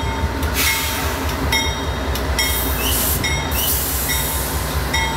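Diesel-electric locomotive (a GE AC4400CW) rolling in slowly, its engine giving a steady low rumble while its electronic bell dings about once a second. Several bursts of hiss, each up to a second long, come over the top.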